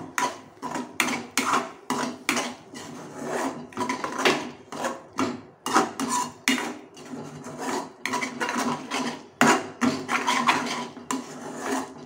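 Steel spoon scraping and clinking against a metal kadai as scrambled eggs are stirred and broken up into crumbs, in irregular strokes about one to two a second.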